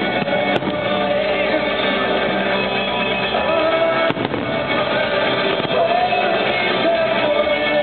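Music with a singer, played over a fireworks show's loudspeakers, with a few aerial firework shells bursting through it, one about half a second in and another around four seconds in.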